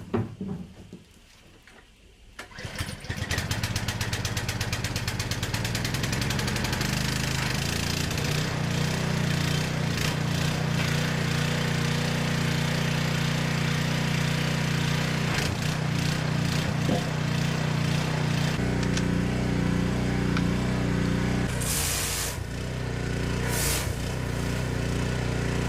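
Pressure washer starting up about three seconds in and then running steadily; its note deepens about two-thirds of the way through.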